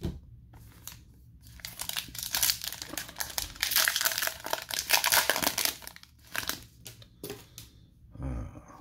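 Foil wrapper of a hockey card pack crinkling and tearing as it is ripped open by hand, loudest in the middle, followed by a few light rustles as the cards are taken out.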